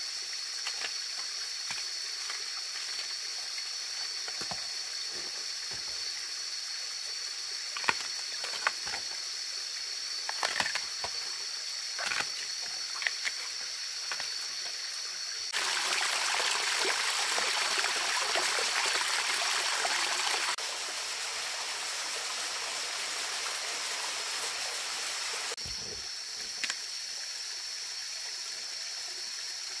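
A forest stream flowing steadily over gravel, with a constant high-pitched whine above it. Several sharp snaps as bamboo shoot husks are peeled. The water rushes louder for about five seconds in the middle.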